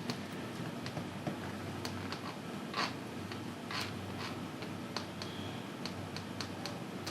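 Mahjong tiles clicking against each other and the table as they are drawn and discarded: scattered light clicks, with two longer clacks about three and four seconds in.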